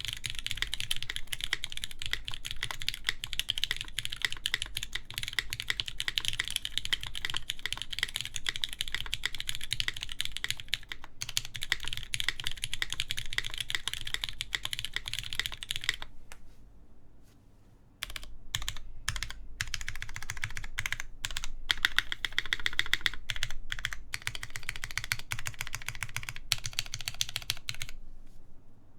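Typing on a Keycult No. 2 mechanical keyboard with lubed Cherry MX Black linear switches, a full aluminium plate and GMK keycaps: a fast, steady clatter of keystrokes. About two-thirds through it pauses for a couple of seconds, resumes with a few separate strokes, runs fast again, and stops near the end.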